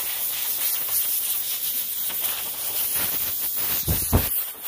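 Compressed-air blow gun hissing steadily as it blows dust off work clothes, with two low thumps about four seconds in.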